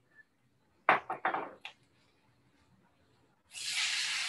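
A few quick knocks and clinks, then about three and a half seconds in a loud sizzle starts suddenly as water is poured into a hot wok and hits the hot oil and pan.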